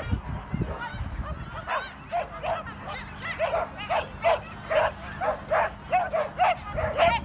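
A dog barking over and over in short, high-pitched yaps, coming several a second at times and thickest in the second half.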